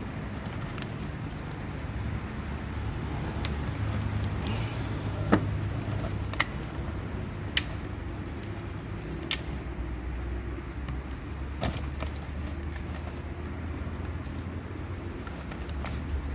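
A steady low engine hum, with several sharp clicks or taps between about five and twelve seconds in.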